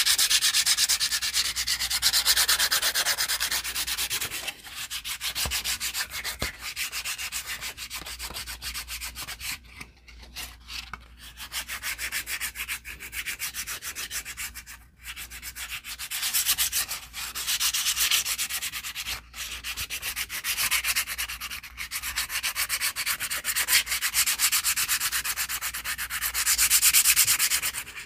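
A nail file rubbed rapidly back and forth over a glossy white card strip, buffing off the shine so the surface will take glue. The scratching goes on in runs with brief pauses.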